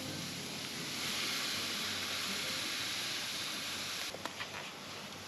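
Fillet steak sizzling over a wood-fire braai: a steady hiss, a little stronger for a few seconds in the middle, with a few faint clicks near the end.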